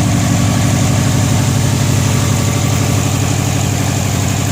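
2002 Subaru WRX's turbocharged 2.0-litre flat-four engine idling steadily, freshly reassembled with its exhaust bolted on.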